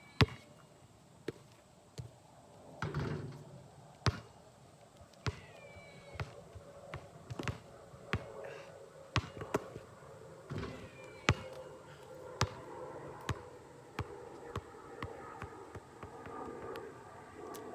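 A basketball bouncing on a hard surface, one sharp bounce about every second, with birds chirping faintly now and then.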